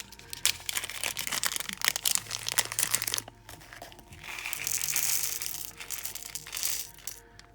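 Plastic packaging crinkling and rustling as a small bag of nail-art crystals is handled and opened: dense crackling for the first three seconds, a brief lull, then a louder stretch of rustling in the second half. Faint background music runs underneath.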